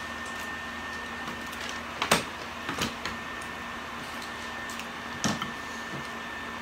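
Steady electrical hum with a thin high whine, broken by a few short sharp knocks or clicks, the loudest about two seconds in and another about five seconds in.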